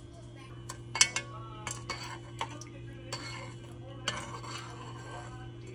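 Metal spoon stirring liquid in a pot, clinking against the pot several times, the loudest clink about a second in.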